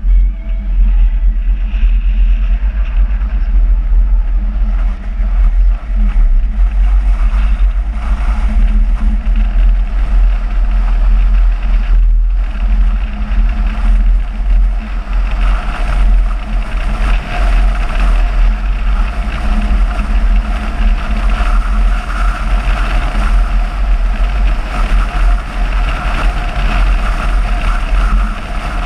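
Car driving at road speed: steady engine and tyre noise under a heavy, constant low rumble of wind on the microphone.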